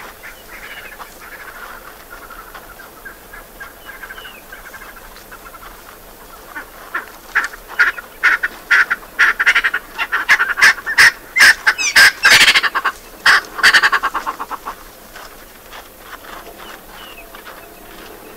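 A run of loud, harsh animal calls repeated several times a second. It starts about a third of the way in, is loudest a little past the middle, and stops about two-thirds of the way through.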